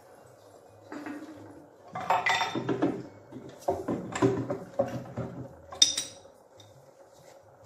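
Small metal and glass ornaments and fittings of a miniature home temple clinking and clattering as a hand handles them, in a run of knocks between about one and six seconds in, ending with a bright ringing clink.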